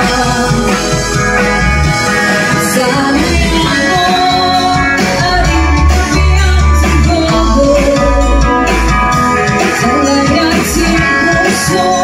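A live band playing through a PA: a woman singing over electric guitar, acoustic guitar, electric bass and a drum kit.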